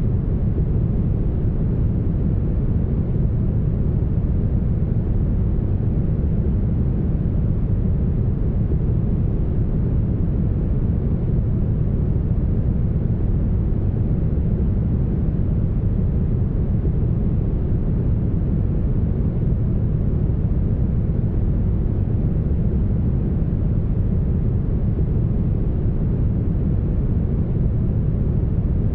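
Smoothed brown noise, even and unchanging, with its weight in the deep bass and the highs cut away.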